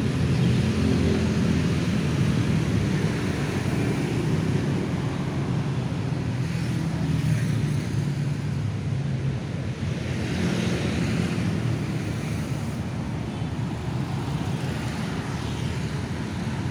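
Motorcycle engine running steadily while riding along a street, with a steady rushing noise over it.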